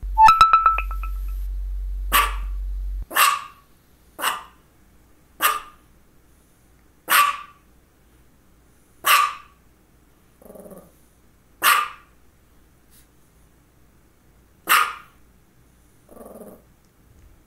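Small dog barking over and over: about eight sharp single barks one to three seconds apart, with two softer low grumbles between them. A loud steady low hum, rapidly clicking at its onset, runs under the first three seconds and cuts off suddenly.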